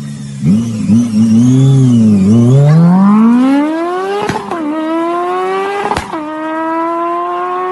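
Car engine sound revving unevenly, then accelerating hard with its pitch climbing steadily, and two gear changes about four and six seconds in where the pitch drops and climbs again.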